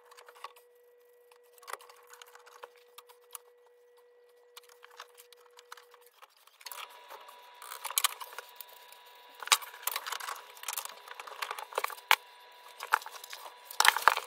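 Hands working copper pipework and pipe clips inside a timber stud frame: scattered clicks, knocks and light metallic clinks, busier and louder from about halfway through.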